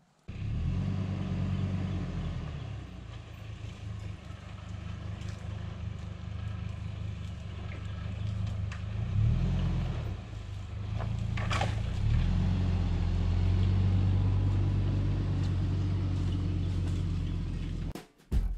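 A vehicle's engine running as it drives, a steady low hum whose pitch rises and falls a few times, cutting off abruptly near the end.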